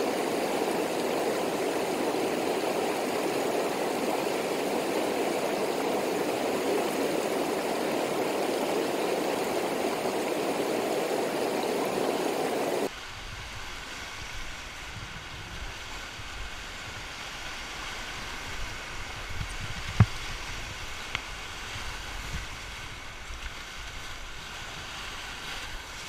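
Whitewater rapids of a mountain river rushing, loud and steady, as heard from the bank. About halfway through it drops suddenly to a quieter rush of water with a low rumble, heard from a standup paddleboard running the rapids, with one sharp knock a little later.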